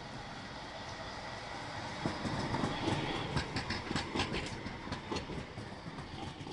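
Tram running past close by, its wheels clacking on the track in a quick, uneven run of clicks over a steady rumble. The clicks are loudest about two to five seconds in and fade near the end.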